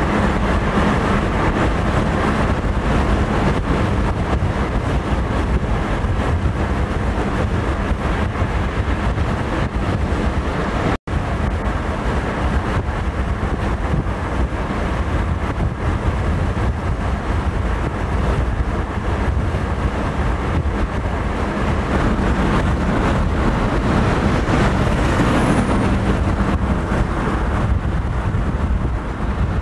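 Steady rumbling noise of road traffic, with a sudden split-second dropout about a third of the way in.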